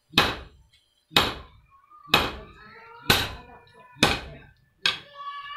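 Sledgehammer strikes on red-hot iron held on a blacksmith's anvil, hand forging with a striker. There are six heavy blows, about one a second, each sharp and fading quickly.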